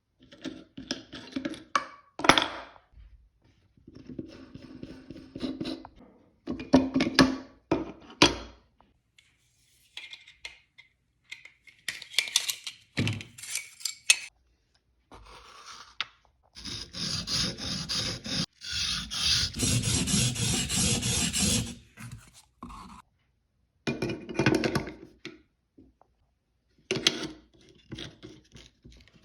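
Planer blades being sharpened: bursts of rubbing and scraping of the steel blades against an abrasive, in short separate passes. About halfway through there is a louder, steadier stretch of rasping noise that lasts about five seconds.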